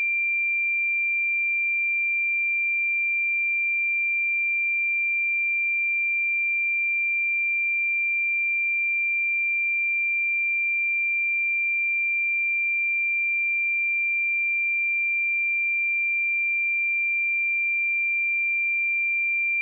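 Pure 2371 Hz sine-wave test tone, held steady at a constant level without any change.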